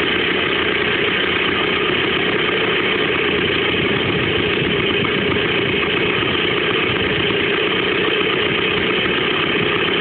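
Lambretta scooter's small two-stroke single-cylinder engine idling steadily, running again after 30 years laid up.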